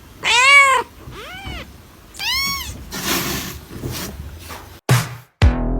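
Domestic cat meowing three times, each call rising then falling in pitch, the second one fainter. Near the end it cuts abruptly to electronic music.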